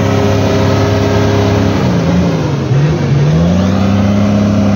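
Toyota Land Cruiser 80 series engine revving hard under load as the four-wheel drive pushes through deep mud. The revs sag about two seconds in, climb back up a second later, then hold steady.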